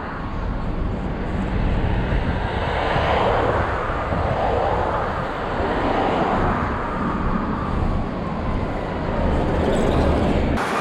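Road traffic at a busy intersection: cars driving past one after another, the noise swelling as each goes by, with no horn sounding.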